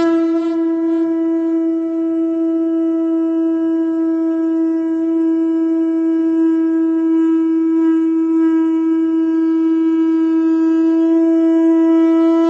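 One long note on a wind instrument, starting abruptly and held steady at a single pitch.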